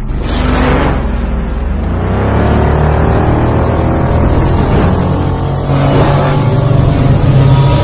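Sci-fi motorcycle engine sound effect, starting suddenly and revving with its pitch sweeping upward, over a steady low drone.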